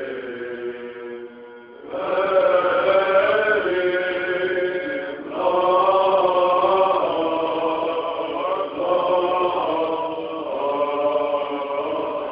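Men's voices singing Greek Orthodox Byzantine chant in long held notes. The singing grows louder about two seconds in, and again after a short break about five seconds in.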